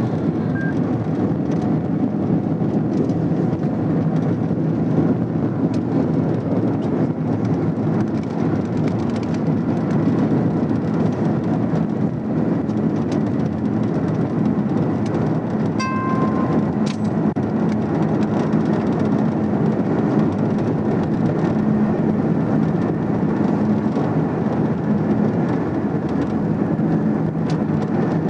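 Steady road and wind noise inside a police patrol car travelling at high highway speed, a constant even rumble. A short electronic beep sounds about sixteen seconds in.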